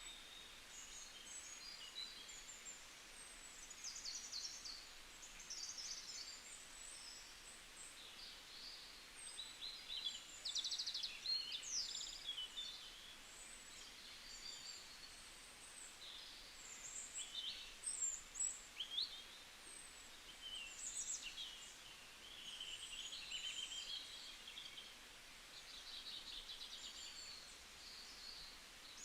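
Several songbirds singing in a forest, many overlapping chirps, short trills and quick whistled notes following one another throughout, over a faint steady background hiss.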